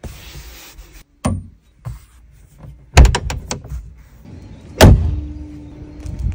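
Door and latch mechanism of a 1971 Porsche 911 ST working: a knock about a second in, a quick run of metallic latch clicks at about three seconds, then one heavy thud of the door shutting just before five seconds.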